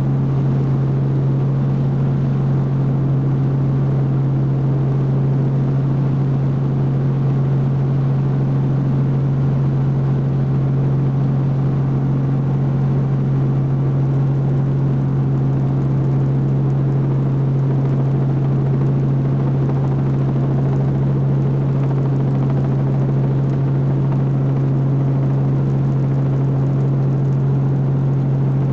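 Robinson R44 helicopter in flight, its engine and rotors heard from inside the cabin: a loud, steady drone dominated by a strong low hum, unchanging throughout.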